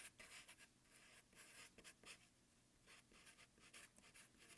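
Faint strokes of a Sharpie felt-tip marker writing on paper, a string of short separate strokes as a phrase is written out by hand.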